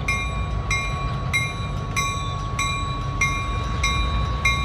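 Diesel locomotive running as it moves slowly along the track, under a bell ringing steadily at about three strikes every two seconds.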